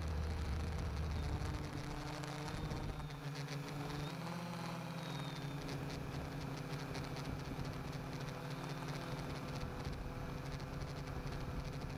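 Quadcopter's electric motors and propellers buzzing steadily in flight, heard from a camera mounted on the frame. A louder low rumble stops about a second and a half in. The buzz shifts in pitch between about two and five seconds in, then holds steady.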